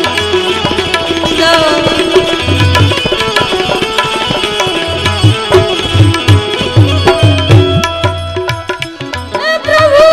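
Instrumental interlude of a bhajan: harmonium and a bulbul tarang (Indian keyed banjo) play the tune over a fast hand-drum rhythm. The drums drop out about eight seconds in, and a long held note begins near the end.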